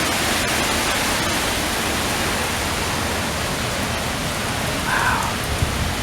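Heavy wind-driven rain in a strong windstorm, a steady hiss with gusts rumbling on the microphone. A brief faint tone sounds about five seconds in.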